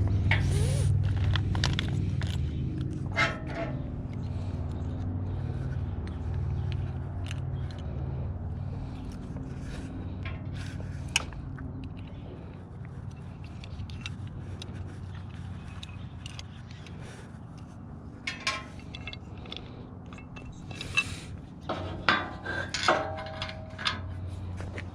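Scattered metal clinks and scrapes from hand tools and mounting hardware (bolts, washers, bracket) being handled, with a cluster of louder clicks near the end. A low engine hum fades away over the first half.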